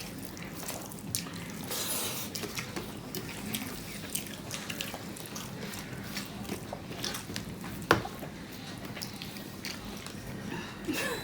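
Wet eating sounds of rice and fish curry: smacking, chewing and small scattered clicks, with one louder sharp click about eight seconds in.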